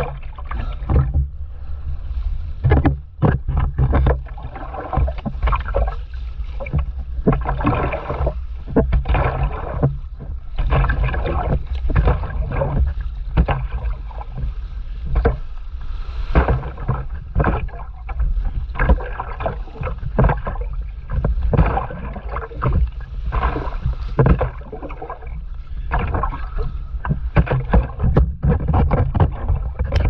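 Water splashing and slapping against a stand-up paddleboard riding small waves, in many irregular short splashes, over a steady low rumble of wind on the microphone.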